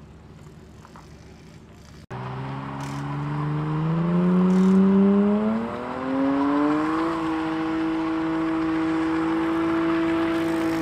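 Car engine revving up for about four seconds and then held at high, steady revs during a burnout, the rear tires spinning in place. It starts abruptly about two seconds in, after a quieter stretch.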